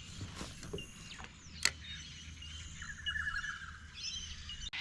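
Birds calling and chirping: short whistled notes, a brief trill about three seconds in, and a steady outdoor background hum. A single sharp click sounds about a second and a half in.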